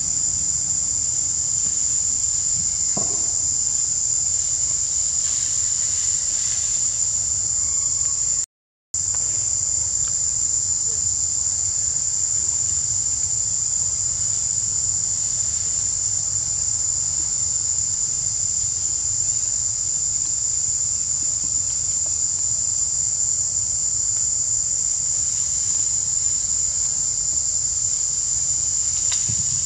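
Steady high-pitched insect chorus shrilling without pause, dropping out completely for a split second about eight and a half seconds in.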